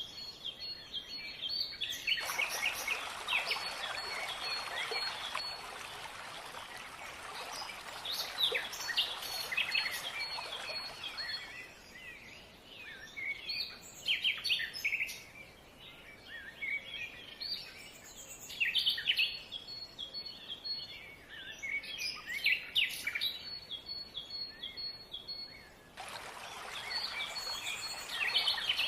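Several songbirds chirping and singing over one another, with short calls and trills. A rushing stream cuts in abruptly about two seconds in, drops out about a third of the way through, and comes back near the end.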